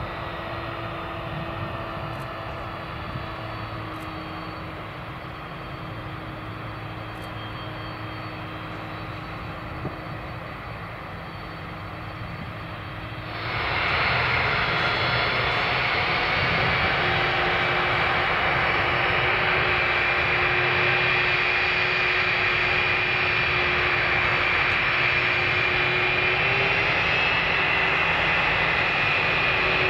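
Boeing 747 freighter's four jet engines running with a steady whine over a rushing noise. A little under halfway through the sound abruptly jumps much louder, and near the end the high whine rises slightly in pitch.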